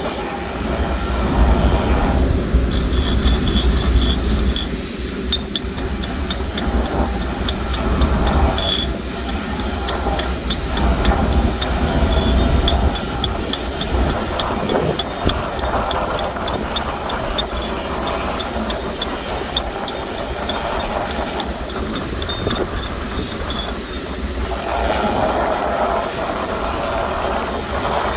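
Stick arc welding: the electrode's arc crackling and sizzling steadily for most of the stretch, over a steady low hum.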